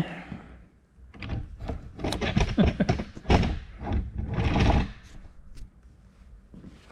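Small screwdriver and ratchet wrench parts clicking, knocking and scraping together while the detent ball and pawl are worked into the ratchet head, busy from about a second in, then dying down near the end.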